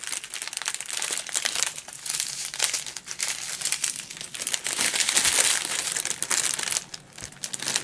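Clear plastic resealable bags of diamond-painting drills crinkling as they are handled and sorted, a continuous irregular crackle that eases briefly near the end.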